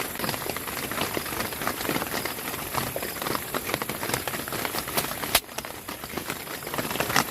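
Rain pattering on a tent: a dense, irregular spatter of drops over a steady hiss.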